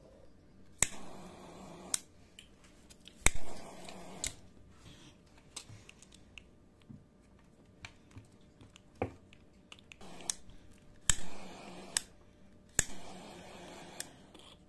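A gas lighter clicked on and off four times, each flame hissing for about a second between the click of lighting and the click of release, as it heats heat-shrink sleeving over a spliced keyboard cable. A few light ticks from handling fall in between.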